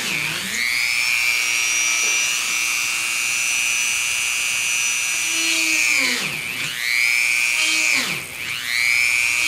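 Dremel rotary tool whining at high speed as a small bit drills stitching holes through two layers of leather. Its pitch dips and climbs back as the bit bites in just after the start, holds steady for several seconds, then dips twice more near the end.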